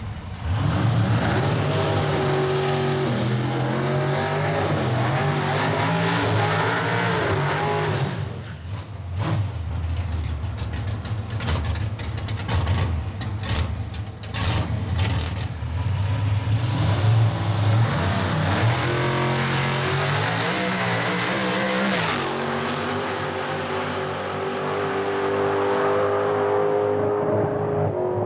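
Pro Stock drag-racing truck at full throttle down the strip, its engine pitch climbing and dropping in steps through the gear changes. A stretch of sharp crackling comes midway, then the engine climbs again and cuts off abruptly about 22 seconds in, leaving a fading drone.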